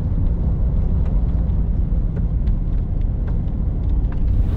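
Strong wind buffeting the microphone: a loud, unsteady low rumble.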